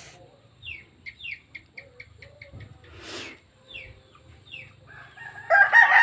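Rooster crowing loudly near the end, one long held call that drops in pitch as it finishes, after a run of quick, high, falling chirps.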